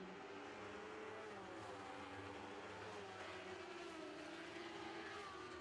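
Faint engines of Lightning Sprint race cars running laps on a dirt oval, their pitch sliding down and back up as they go through the turns.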